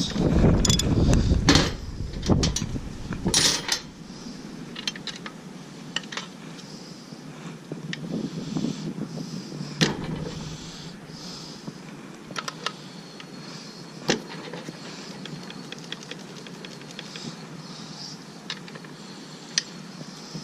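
Hand-tool work on a motorcycle rear axle and chain adjuster: a dense run of metal clicking and rattling for the first three seconds or so, then scattered light metal clicks and knocks.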